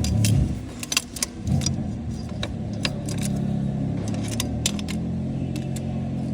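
A car engine idles with a steady low hum that dips briefly near the start and then holds steady, while light metallic clinks of tools or keys sound on and off.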